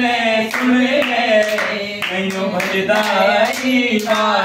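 A group of people singing together with held notes, to steady hand clapping at about two claps a second.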